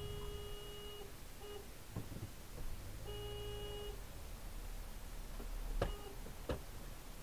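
Car horn sounding a steady note that stops about a second in, then a second, roughly one-second blast about three seconds in. Two sharp clicks follow near the end.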